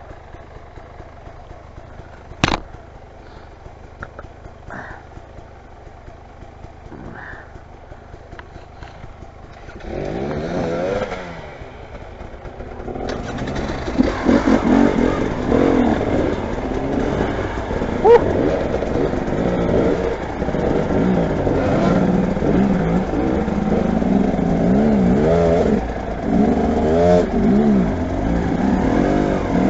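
Motorcycle engine ticking over quietly, with one sharp knock about two seconds in. From about ten seconds in it revs repeatedly, its pitch rising and falling, and it gets louder from about thirteen seconds.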